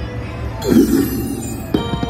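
Video slot machine starting a spin: a loud swelling sound effect a little over half a second in, then a run of quick ticks as the reels spin, over the machine's jingling game music.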